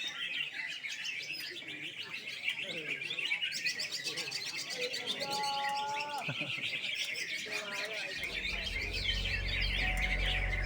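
Many caged greater green leafbirds (cucak ijo) singing at once, a dense, busy stream of high chirps and warbles. Background music with steady low notes comes in about eight seconds in.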